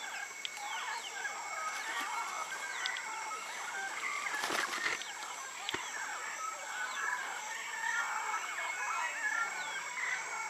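A flock of amazon parrots calling at their roost: many overlapping squawks and chatter, with no let-up.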